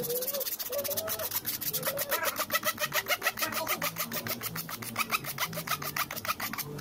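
Coarse sandpaper scraping back and forth on the wooden tenon of a billiard cue shaft, quick even strokes several times a second, sanding the wood down so the ferrule will fit snugly.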